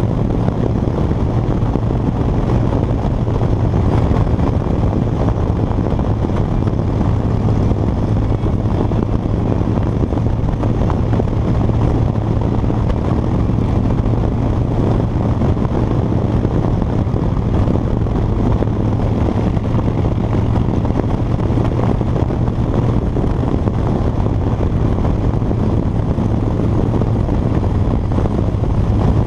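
2013 Harley-Davidson Dyna Fat Bob's V-twin engine running steadily at cruising speed, heard from the rider's seat as a constant low drone mixed with wind and road noise. The engine note eases slightly for a few seconds near the end.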